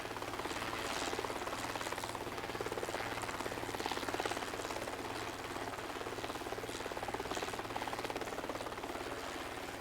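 Steady engine and rotor or propeller noise of an aircraft in flight, with a fast, even pulsing and a constant low hum.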